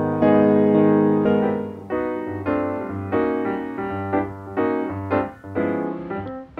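Slow piano music: a held chord at first, then single notes struck one after another, about two to three a second, each ringing out and fading.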